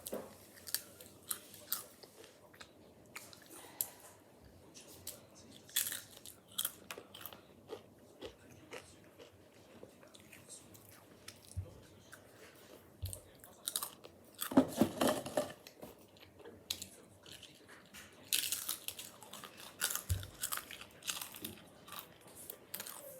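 Potato chips being bitten and chewed: a run of short, crisp crunches, with a louder burst of crunching about fifteen seconds in.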